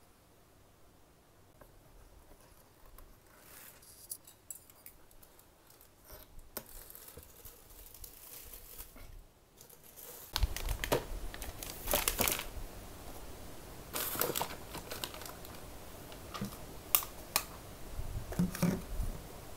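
Plastic shopping bags rustling and crinkling, with scissors snipping as items are unpacked. It is faint for about the first ten seconds, then louder handling with sharp clicks and snips.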